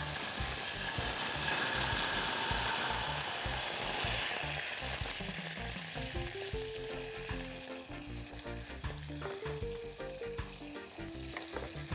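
Coconut milk being poured into a saucepan: a hissing pour that fades out over about five seconds. Quiet background music with a simple melody comes in about six seconds in.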